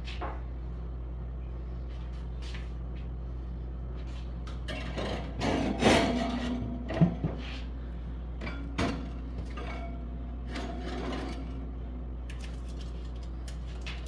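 Handling noises of food containers and packages being moved around on refrigerator shelves: a few scattered clicks and knocks, with a short cluster of knocks and rustling a little past the middle that holds the two loudest knocks, all over a steady low hum.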